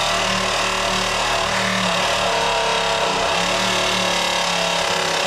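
A cordless power tool runs steadily and loudly for about six seconds, with a steady hum under a harsh, even noise, then cuts off.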